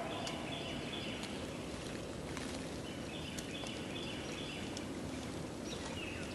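Rabbit hounds baying faintly in the distance, their calls short and repeated in bunches, over steady outdoor background noise with a few light crackles.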